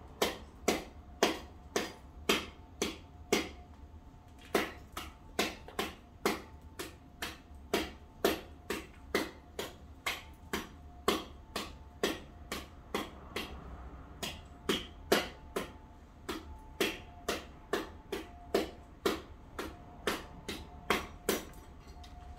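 Sharp knocks repeating steadily about twice a second, with a short pause about four seconds in, over a faint steady hum.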